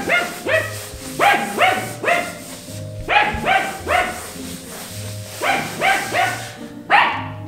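A dog barking repeatedly in quick runs of two or three barks, with short gaps between the runs: alert barking at a newly arrived stranger in the house.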